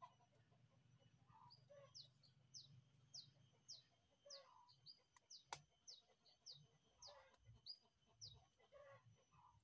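Faint yard sounds: a chicken clucking now and then while a small bird repeats a short, high, falling chirp about twice a second. A single sharp click comes about halfway through.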